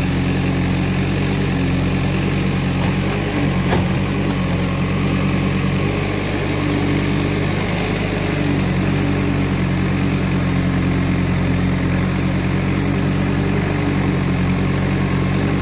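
Massey Ferguson 241 DI tractor's diesel engine idling steadily close by, with one brief knock about four seconds in.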